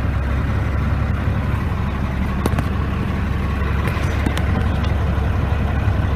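Cummins L10 inline-six diesel engine idling steadily, heard from inside the truck cab, with a few light clicks about halfway through.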